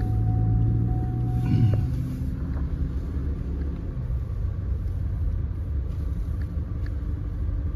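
Engine and road rumble heard from inside the cab of a vehicle driving slowly, steady throughout, with one brief louder bump about a second and a half in.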